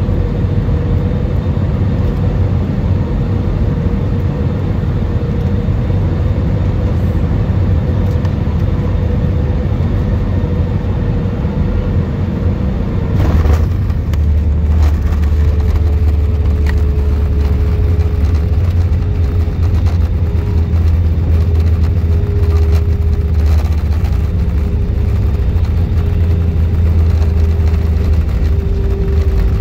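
Jet airliner cabin noise during the descent: a loud, steady rumble with a thin engine tone that slowly drops in pitch. About 13 seconds in the sound shifts and the low rumble grows stronger.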